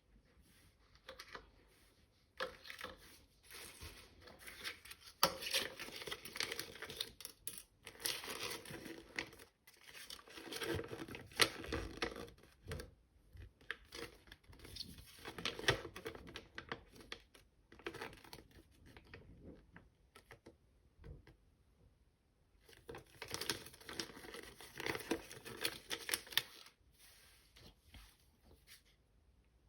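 Plastic and foil toy packaging being crinkled and torn open by hand, in several long stretches of crackling separated by quieter pauses.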